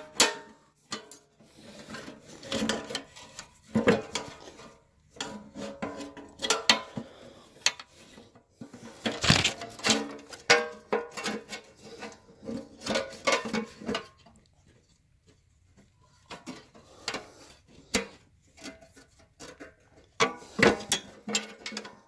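Irregular metallic clinks, knocks and scrapes from hands and tools working on an old Locke reel mower's belt drive and engine parts, with a quieter pause of a couple of seconds past the middle.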